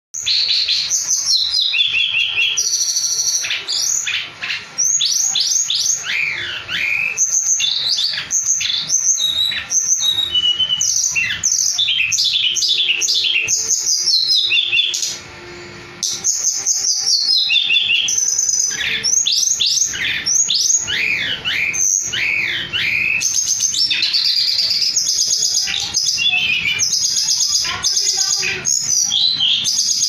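Caged songbird singing non-stop in aggressive fighting-style song: a rapid stream of varied whistles, trills and down-sweeping notes. It pauses briefly about halfway through, then carries on.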